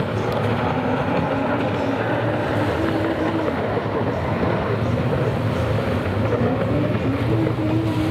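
Racing jet skis (personal watercraft) running at speed over open water, their engines a steady drone whose pitch wavers up and down, over a hiss of water and wind.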